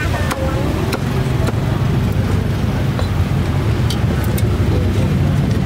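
Steady low rumble of a motor vehicle's engine running close by, with a few light clicks over it.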